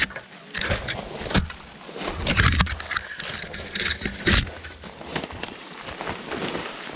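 Footsteps and the rustle and crunch of brush and undergrowth, in uneven bursts, as a person walks through vegetation, with wind rumbling on the microphone.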